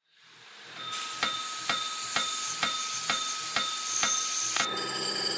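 CNC milling machine cutting aluminium with an end mill: a steady hiss with a faint high whine and sharp ticks about twice a second. A little before the end the sound changes to a fuller machine hum with several steady tones.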